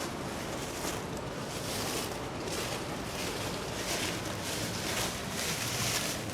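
Steady rushing of a creek and its waterfalls, an even hiss with soft swells in it.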